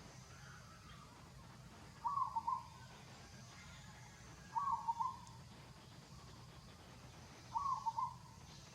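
A bird calling three times, short calls of a few quick notes each, repeated about every two and a half to three seconds over a steady low background hum.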